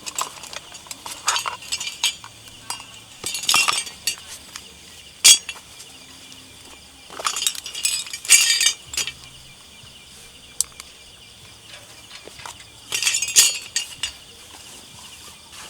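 Camping gear being handled: clinks and rustles in three or four short bursts, with a sharp knock about five seconds in, over a steady insect drone.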